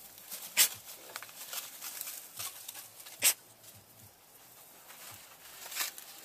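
Young pigs snuffling and snorting as they root about in grass and straw: irregular short breathy snorts and sniffs, the two loudest under a second in and about three seconds in.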